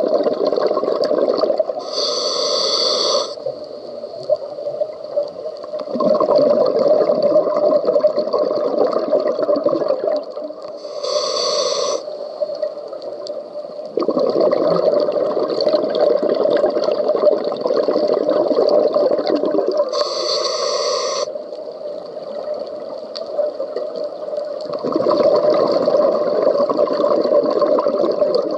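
Scuba diver breathing through a regulator underwater. Three times, about every nine seconds, there is a short hissing inhale lasting about a second, and each is followed by several seconds of bubbling exhaust from the exhale.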